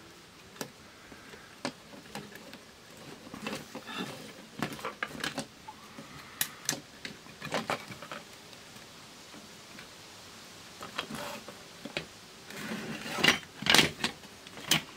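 Handling noises from an opened portable cassette player: scattered small clicks, taps and rustles as its circuit board and insulating sheet are moved by hand, with a few louder knocks about thirteen seconds in.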